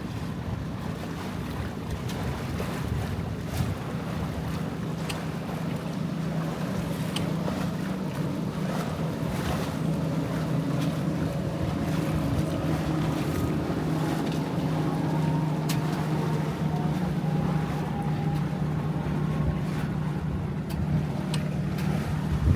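Wind on the microphone and water moving past the hull of a Catalina 22 sailboat under way. A steady low hum grows stronger about halfway through, with scattered small clicks.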